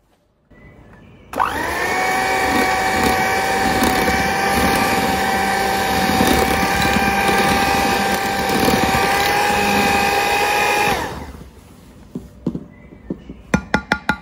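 Electric hand mixer running at steady speed, its beaters whipping cream into custard in a glass jug; it switches on about a second in, runs with an even whine for about ten seconds, then stops. A few light clicks and knocks follow near the end.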